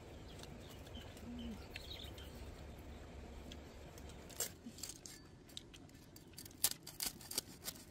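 Cleaver cutting through the crisp crackling skin of roast pork: a string of sharp, irregular crunches and cracks in the second half, the loudest about two-thirds of the way through.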